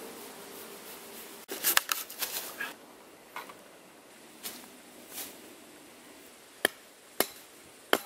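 Wood cracking and snapping. There is a quick run of sharp snaps about two seconds in, a few softer ones after that, and three single loud cracks near the end.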